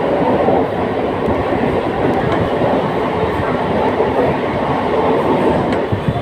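Non-AC Mumbai suburban local train (EMU) running, a steady dense noise of wheels on track and the moving coach, heard from aboard.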